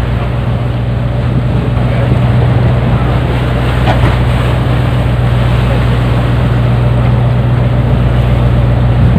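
Fishing boat's engine running steadily with a low hum, under a constant rush of wind and sea.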